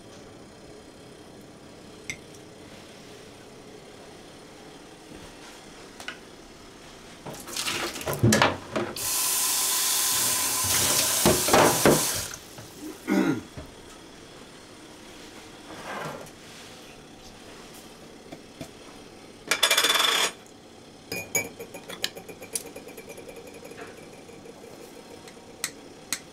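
Home kitchen work: dishes and a pan clattering, then a tap running hard for about three seconds, more knocks, a second short burst of hiss, and a run of light clinks like a spoon against a jar or mug.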